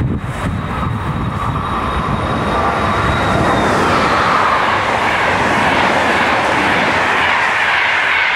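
High-speed electric train passing at speed: a rush of air and wheel noise that builds over the first few seconds and then holds loud, with a high whine that drops away about four seconds in as the train goes by.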